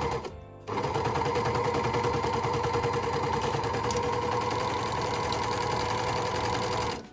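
Overlocker (serger) running fast, stitching a seam while its blade trims the fabric edge. It pauses briefly just after the start, then runs steadily and stops abruptly near the end.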